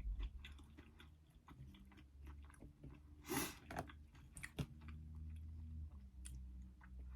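Close-up chewing of boneless buffalo wings, with many small wet mouth clicks and one louder mouth noise a little over three seconds in.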